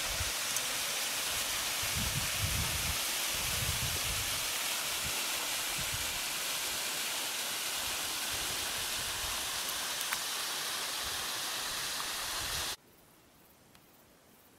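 Mountain stream rushing over rocks in a gorge, a steady hiss, with wind buffeting the microphone in low gusts during the first few seconds. It cuts off suddenly about thirteen seconds in, leaving near silence.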